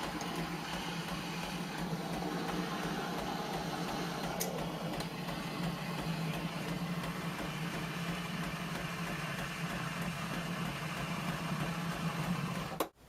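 illy X8 iperEspresso machine's pump running with a steady buzz while it brews, then shutting off with a click near the end.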